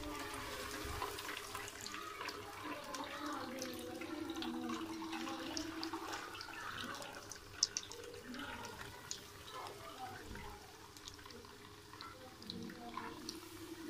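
Breaded potato-and-chicken donut deep-frying in hot oil: a steady sizzle with a dense crackle of small pops from the bubbling oil, and one sharp louder pop about halfway through.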